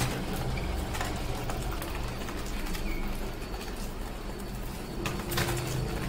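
Budgerigars in a cage, a few faint short chirps and soft clicks over a low steady background rumble.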